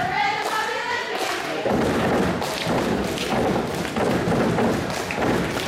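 Repeated thuds and crowd noise echoing in a school gymnasium during a basketball timeout. A voice holds long tones in the first second or so, then a dense run of thumps and chatter takes over.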